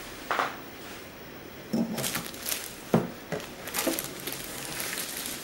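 Handling clatter of a foldable wooden-top laptop table with tubular legs being lifted, swung round and set on a wooden tabletop: a series of knocks, the sharpest about three seconds in, with plastic wrap rustling between them.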